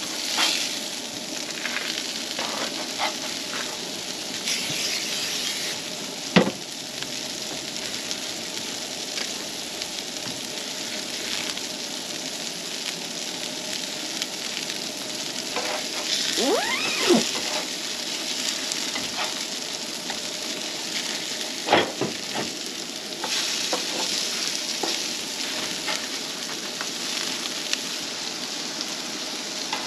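Sausage patties sizzling steadily on a flat griddle over a propane camp stove, with bread toasting beside them. A few sharp metal clicks from the spatula and tongs on the griddle stand out, the loudest about six seconds in and again past the twenty-second mark.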